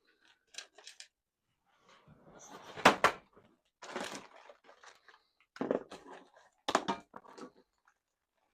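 Handling noises: a string of knocks and clatters, the loudest about three seconds in, with softer rustling between, as things are moved about and set down.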